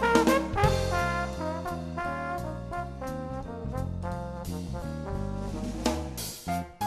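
Instrumental background music: a jazzy tune led by brass over a drum beat.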